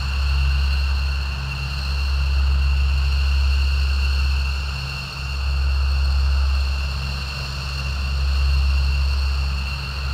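Military aircraft engines running loud and steady, a high-pitched whine over a deep rumble that swells and eases every few seconds.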